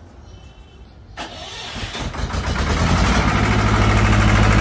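Air-cooled diesel generator engine starting: it kicks in about a second in, builds up, and settles into steady running about three seconds in.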